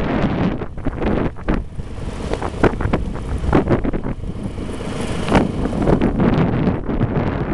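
A vehicle driving along an unpaved gravel road, its running and road noise mixed with wind buffeting the microphone in irregular gusts.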